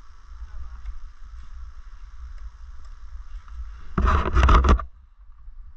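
Wind rumbling on the microphone, with a loud burst of rustling and clicking about four seconds in that lasts under a second.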